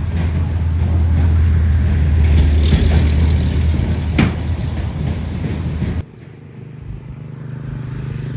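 A small engine running steadily. About six seconds in it cuts off abruptly, giving way to a quieter, slightly higher-pitched engine hum.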